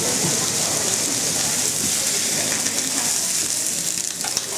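Thick beef steaks sizzling on a hot ridged griddle pan: a steady, even hiss of fat and juices frying.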